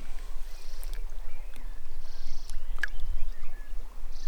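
Outdoor ambience: a steady low rumble, over which short, high buzzing calls repeat about every two seconds, with faint chirps in between and a sharp click about three seconds in.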